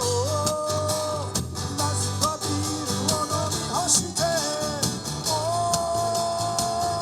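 A man singing a Japanese song to a strummed Gibson J-200 acoustic guitar. He holds one long note at the start and another over the last couple of seconds.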